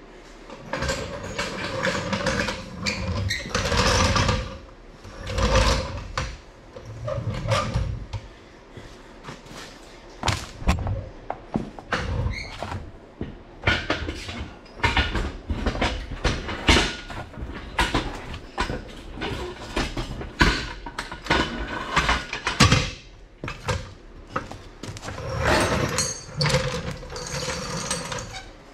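Irregular metal clanks, knocks and creaks from a hydraulic engine hoist being worked and shop tools being handled around a steel truck frame.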